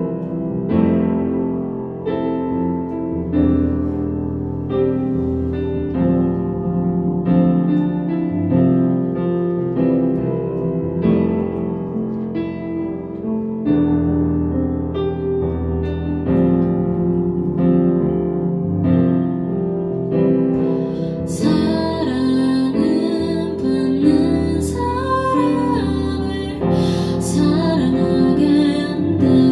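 Piano sound played on a Kurzweil PC4 SE keyboard: an instrumental passage of sustained chords and melody notes. A woman's singing voice comes in over the last several seconds.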